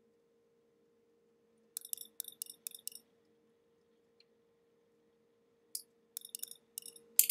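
A quick run of about six sharp clicks, then a pause with one faint tick. Near the end comes another cluster of clicks, ending in the loudest one. A faint steady hum sits underneath throughout.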